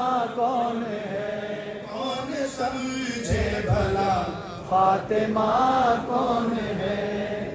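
A man singing a devotional Urdu poem into a handheld microphone, in long wavering held lines with short breaks between phrases.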